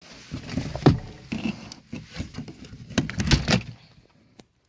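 Knocks and rattles of an RV's screen door and entry door being opened, in a run of short clatters, the loudest about a second in and again around three seconds in.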